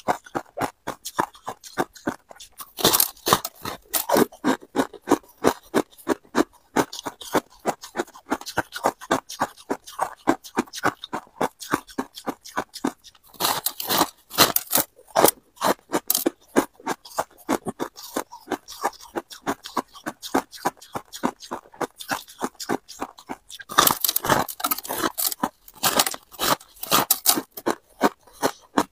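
Freezer frost crunching as it is bitten and chewed close to the microphone: a quick, steady run of crisp crunches, with louder bursts about three seconds in, halfway through, and near the end.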